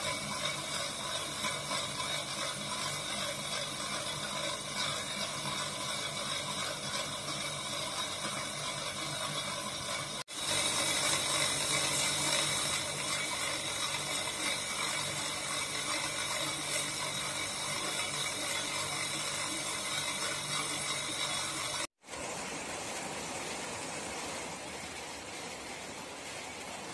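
Electric motor spinning a stone-polishing wheel, with an agate cabochon held against it: a steady whirring hum with a hiss. It drops out briefly about ten seconds in and comes back a little louder, then cuts off about 22 seconds in to a quieter, steady hiss.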